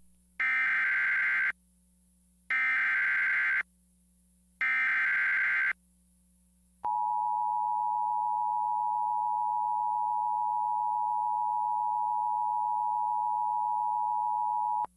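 Emergency Alert System signal: three one-second bursts of warbling digital header data about a second apart, then a single steady attention tone held for about eight seconds that cuts off sharply. It signals an emergency alert, here a National Weather Service severe thunderstorm warning.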